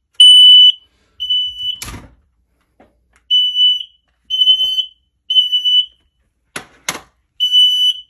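Kidde stand-alone smoke alarm sounding its loud, high-pitched beep in the three-beep-and-pause evacuation pattern, set off by Smoke Sabre aerosol test smoke in its sensing chamber. Two sharp knocks come in between the beep groups.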